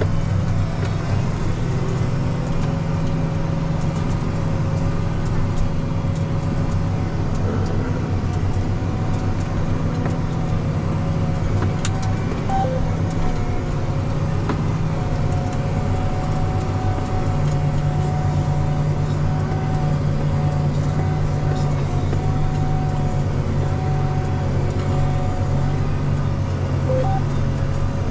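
Farm tractor's diesel engine running steadily, a low drone with a faint steady whine above it; the engine note shifts slightly a little past halfway.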